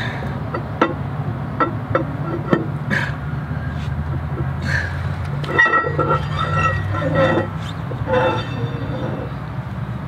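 Metal clinks and knocks of hand tools and the axle flange being handled at a semi truck's wheel hub, over a steady low vehicle engine hum. A brief run of higher tones comes a little past halfway.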